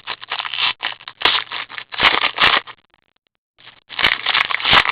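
Black Diamond hockey card pack wrappers being torn open and crinkled close to the microphone, in irregular scraping, crackling bursts with a few sharp clicks and a short pause about three seconds in.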